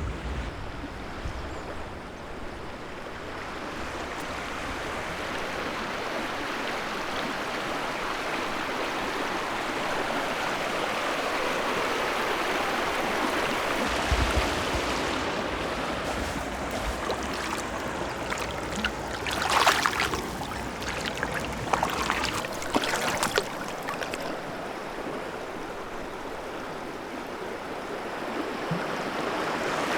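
Small stream running steadily, a continuous rush of flowing water. A low thump comes about halfway through, and a few short louder splashy bursts follow a little after it.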